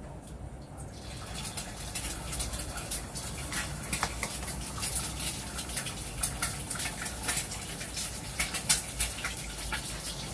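Hot oil sizzling and spattering in a wok as food fries, a dense crackle of pops that starts about a second in.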